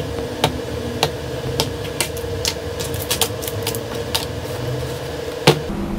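Small cardboard parts boxes and packets being set down on a plastic cutting mat: a run of light clicks and taps, about two a second, over a steady hum.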